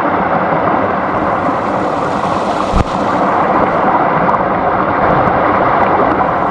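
Small stream flowing over stones with a steady rushing babble. A single brief low thump about three seconds in.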